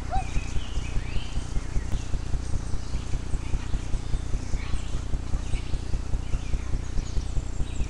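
A steady low thumping at about four beats a second, with short bird chirps above it.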